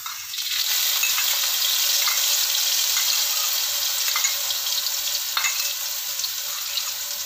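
Dried Medan anchovies (ikan teri) sizzling in shallow hot oil in a wok, just tipped in: a steady hiss with scattered small crackles.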